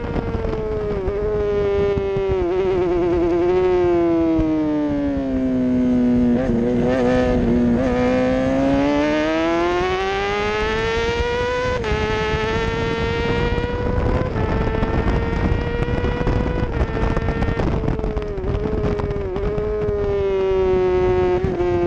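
Racing motorcycle engine heard onboard at high revs. Its pitch steps down through several downshifts into a corner and bottoms out, then climbs steadily as it accelerates out. It drops sharply at two upshifts, about twelve and fourteen seconds in, and then holds high, with wind noise underneath.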